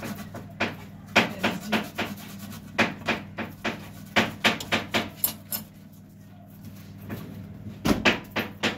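Onion being grated by hand on a flat stainless-steel grater: a run of short rasping strokes at an uneven pace of roughly two a second, with a pause of about two seconds past the middle.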